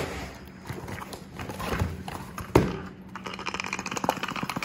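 Packaging being handled and torn open: brown kraft paper crinkling and a cardboard box knocking, in irregular knocks and rustles. One sharp knock about two and a half seconds in is the loudest.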